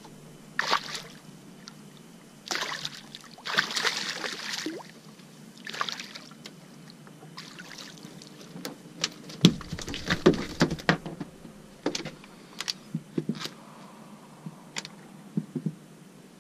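A sea bass splashing at the surface beside the boat, then flopping on the boat's deck once it is swung aboard, in a quick run of sharp knocks and thuds that thins out near the end.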